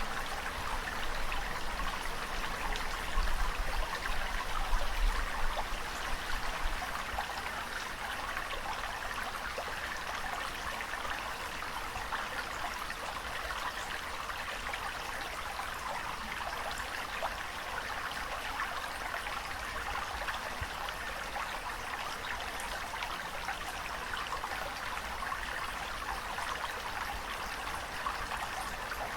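Steady running water with a fine, even trickling and splashing wash. There are a few louder surges and low rumbles in the first several seconds, then it settles to a constant level.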